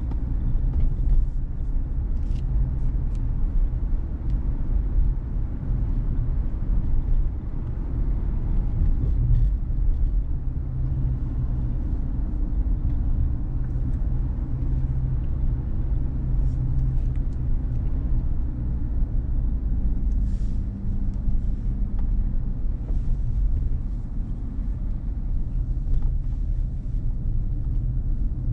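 A car driving, heard as a steady low rumble of engine and tyre road noise, with a few faint clicks.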